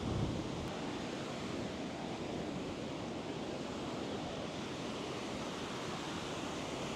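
Ocean surf breaking and washing onto a sandy beach: a steady, even wash of waves.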